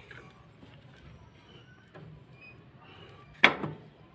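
Workshop handling noise during engine reassembly: a light click about two seconds in, then one sharp knock near the end, as a hard object is set down or struck.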